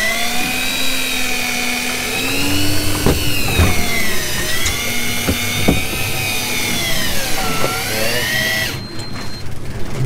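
Daiwa Tanacom 1000 electric reel motor whining as it winds a hooked tilefish up from deep water, its pitch rising and falling with the load on the line. A few knocks sound along the way, and the whine stops abruptly near the end.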